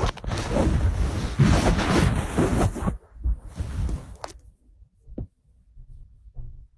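Loud rushing noise right on the microphone for about three seconds, cutting off suddenly, followed by a few faint soft thumps.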